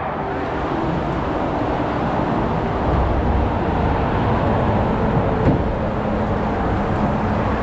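Steady rushing of water pouring into a tube slide's start tub, with a low rumble underneath.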